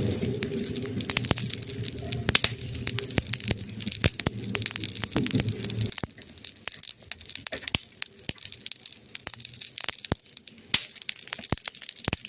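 Campfire crackling with many small irregular pops, two sharper cracks standing out, one about two seconds in and one near the end. A low rumble runs underneath through the first half and stops about halfway.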